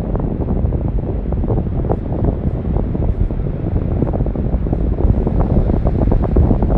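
Wind buffeting the microphone with a low, rumbling crackle over the steady wash of ocean surf.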